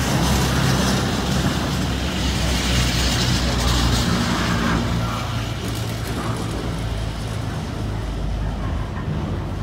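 Class 66 diesel-electric locomotives, with their two-stroke EMD twelve-cylinder engines, running with a steady low rumble as a container freight train rolls past.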